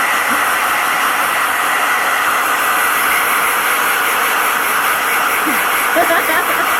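Handheld hair dryer running steadily with a loud, even rushing hiss. Near the end, a few short cries that rise and fall in pitch sound over it.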